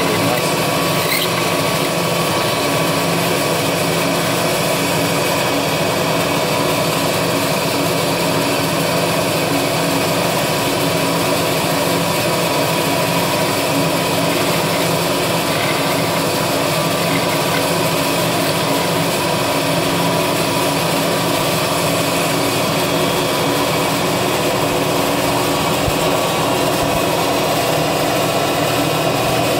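Milling machine spindle running steadily while a small end mill cuts thin aluminium plate. It makes a continuous, even machining sound made of several steady tones.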